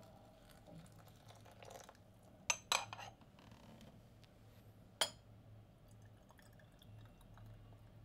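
Hot water poured softly onto loose tea leaves in a porcelain gaiwan, followed by the porcelain lid being set on the cup: three sharp clinks about two and a half to three seconds in, and a single clink about five seconds in.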